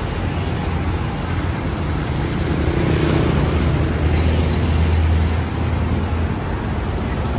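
Road traffic with cars and motorbikes passing. A low engine rumble swells about halfway through and drops away near the end.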